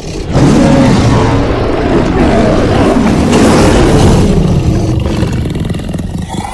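Saber-toothed leopard creature sound effect: one long, loud big-cat roar that swells up in the first half second and then holds for about six seconds.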